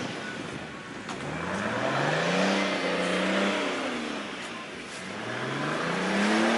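A vehicle engine revving: the pitch climbs about a second and a half in, holds for a second or so, falls away, then climbs again near the end.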